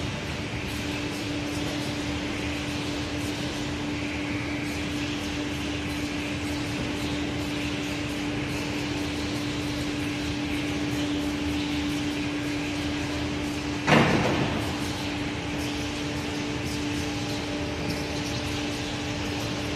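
Aschersleben SZ guideway grinding machine running: a steady hum with a constant low tone and a hiss over it, and a single sharp clank about fourteen seconds in that rings briefly.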